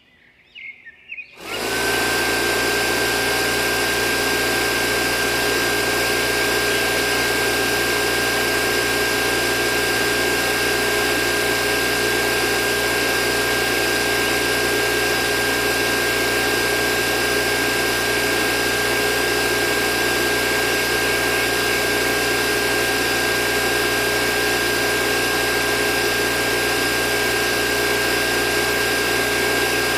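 Small DC hobby motor driving a homemade mini water pump: a few crackles as its bare wires are touched together, then about a second and a half in it starts and runs with a steady high whine.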